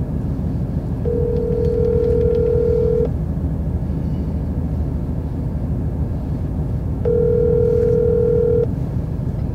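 Phone ringback tone playing through a smartphone's speaker, a steady tone sounding twice for about two seconds each, some four seconds apart, over the low steady rumble of a car cabin.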